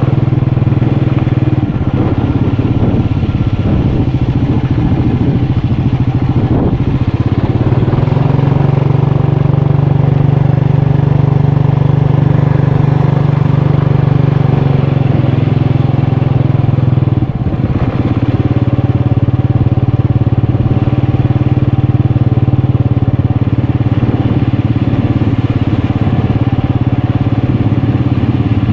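Motorcycle engine running continuously during a ride. The engine note shifts and steadies a few seconds in, then drops briefly a little past halfway before picking up again.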